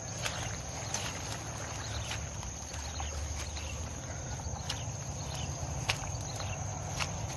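Footsteps pushing through dense ferns and tall grass: rustling of leaves and stems, with irregular sharp snaps and clicks of twigs underfoot.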